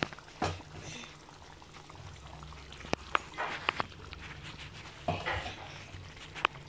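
Thick paneer curry gravy simmering in an iron kadai, with a few sharp pops of bursting bubbles about three seconds in and again near the end, over a low steady hum. Short noisy bursts come about half a second and five seconds in.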